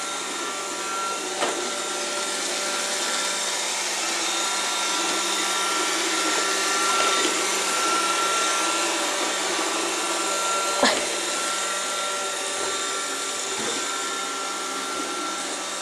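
iRobot Roomba robot vacuum running steadily, an even whir with a constant high whine. There is a sharp knock about eleven seconds in and a smaller one about a second and a half in.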